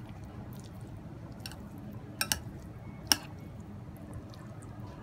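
Metal spoon mixing potato salad in a glass bowl: soft squishing of mayonnaise-coated potato and egg, with a few sharp clinks of the spoon against the glass, two close together about two seconds in and one more about a second later.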